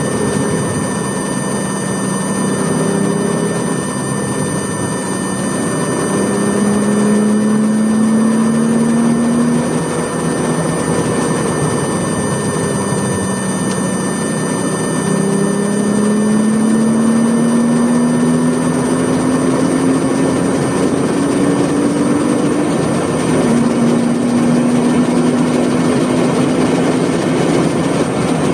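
1981 Porsche 911SC's air-cooled 3.0-litre flat-six engine accelerating hard, heard from inside the cabin: its pitch climbs in several long pulls broken by gear changes, over steady wind and road noise.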